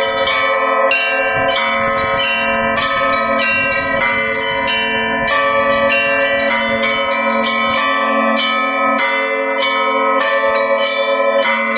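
Russian Orthodox church bells rung in a festive feast-day peal. Many strikes of bells at different pitches come quickly and overlap, with the hum of the larger, lower bells held beneath.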